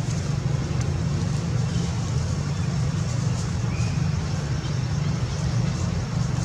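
A steady low rumble, with faint short high ticks scattered over it.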